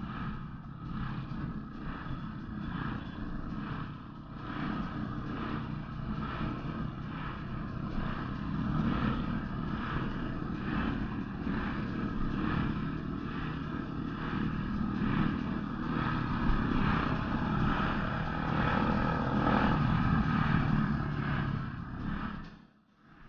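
Motorcycle engine running at road speed with steady wind rush on the bike-mounted microphone; the sound cuts off abruptly just before the end.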